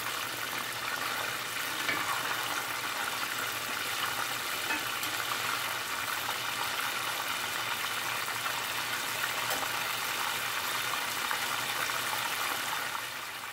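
Chicken pieces deep-frying in hot oil: a steady bubbling sizzle during the second fry that crisps the crust.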